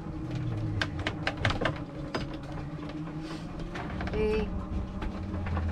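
Irregular clicks and knocks of a sailboat's gear under way, over a low hum that comes and goes, with one short squeak about four seconds in.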